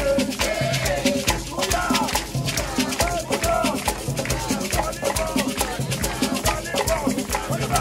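Live African-style percussion: hand drums playing a repeating pattern under fast shaker rattling, with voices singing along.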